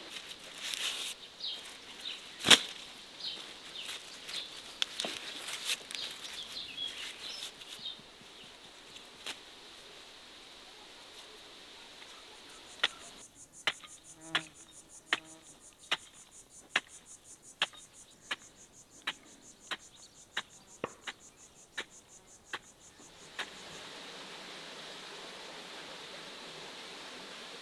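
Birds chirping, with one sharp click about two and a half seconds in. About halfway through, a hoe's metal blade chops into the soil about once every 0.7 seconds, some fifteen blows, over the high buzz of insects; then a steady soft hiss.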